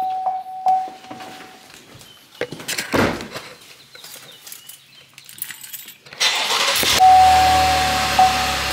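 SUV's warning chime sounding as a steady tone, a thud about three seconds in, then the engine starts about six seconds in and runs, with the chime tone sounding again over it.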